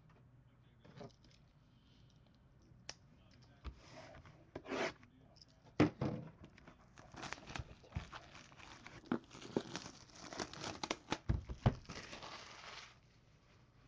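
Shrink wrap being torn and crinkled off a sealed hobby box of football cards: sharp rips and crackling plastic starting a few seconds in, busiest in the second half, stopping shortly before the end.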